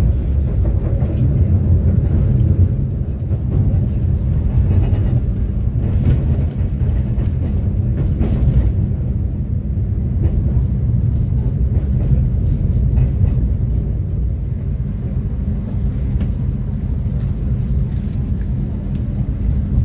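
Inside an Argo Wilis executive passenger coach running at about 40–50 km/h: the wheels give a steady low rumble on the rails, with a few faint knocks.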